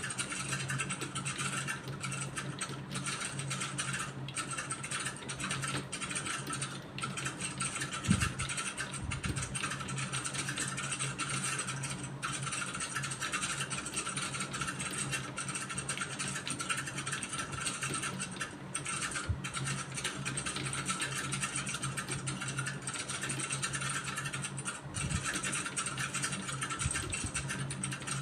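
Computer keyboard keys being typed in a continuous run of small clicks, over a steady low hum; one louder knock about eight seconds in.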